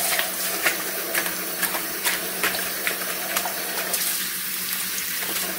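Kitchen tap running into a sink full of water while a hand swishes collard greens around in it, with small splashes throughout: the greens being agitated in the wash water to loosen grit.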